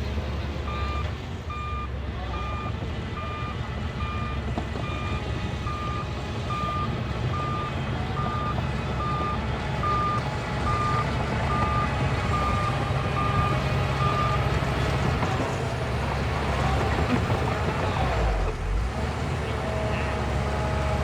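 Bulldozer's reversing alarm beeping evenly, about three beeps every two seconds, over the steady rumble of its diesel engine. The beeping stops about two-thirds of the way through and the engine carries on, a little louder.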